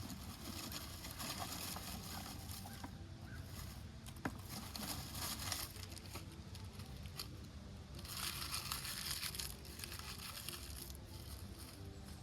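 Dry dead leaves and crumpled newspaper rustling and crinkling as they are handled and packed for a fire lay, in several bursts.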